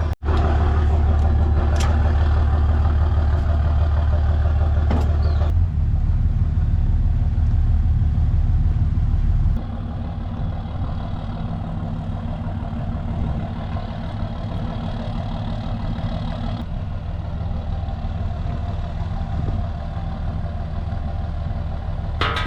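A vehicle engine idling steadily with a low hum, a few faint knocks in the first few seconds; the sound drops in level and changes character about ten seconds in.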